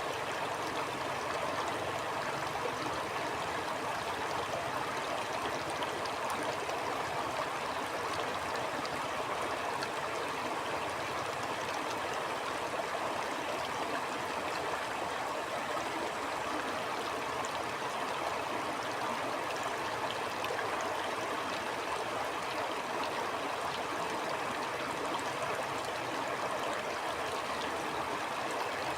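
Stream water flowing, a steady, even rush without pauses or changes.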